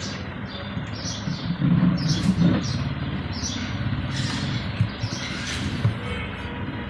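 Birds chirping repeatedly over a steady low mechanical hum, which swells briefly about two seconds in.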